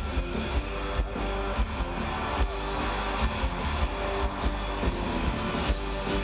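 Music with strummed guitar and a steady beat.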